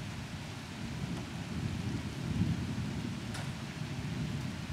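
Thunder rumbling low and rolling, swelling about two seconds in, over a steady hiss of rain.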